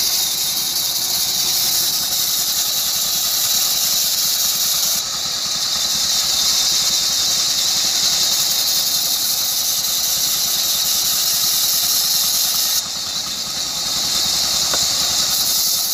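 Band saw ripping a block of soft wood into planks: a loud, steady, high-pitched hissing whine of the blade in the cut. It eases briefly about five seconds in and again near the end.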